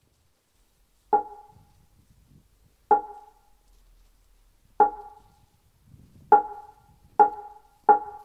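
Wooden han, a Zen sounding board, struck with a mallet: six resonant knocks, each with a short ring, starting about two seconds apart and quickening near the end. This is the accelerating roll beaten to call practitioners to meditation.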